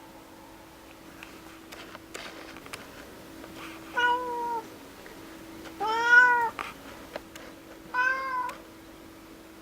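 Domestic cat meowing three times, short arching calls about two seconds apart, the middle one the loudest and longest.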